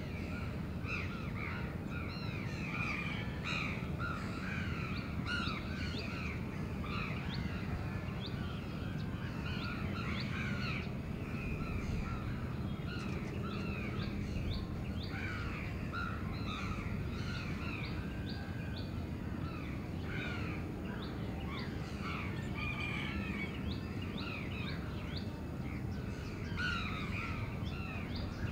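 A chorus of crows cawing continuously, many calls overlapping, over a steady low rumble of city sound.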